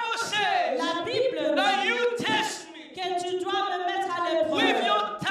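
Many voices of a church congregation raised together without instruments, rising and falling in pitch, with a brief lull a little over halfway through.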